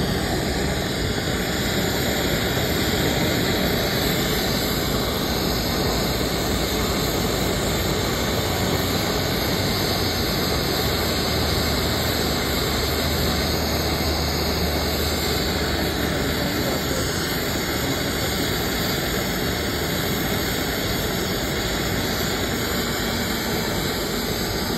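A steady, loud rushing noise with no pauses, with a low hum underneath in the middle stretch.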